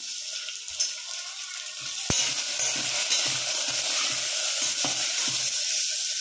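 Brinjal pieces and frozen green peas sizzling in hot oil in an open pressure cooker. About two seconds in, a spatula starts stirring them, knocking and scraping against the pot about twice a second.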